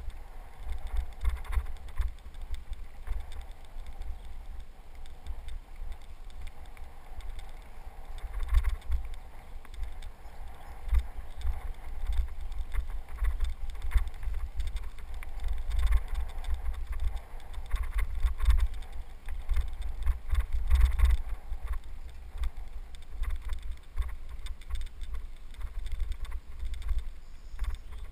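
Riding a bicycle over a dirt trail: wind buffeting the helmet-mounted camera's microphone as a gusting low rumble, with tyres crunching and the bike rattling over bumps, heaviest around a third of the way in and again past the middle.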